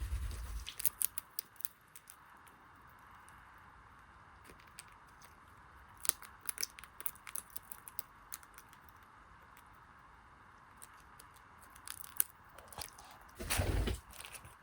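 A cockatiel making scattered small clicks and crunches, in short clusters, with one louder brief rustle near the end.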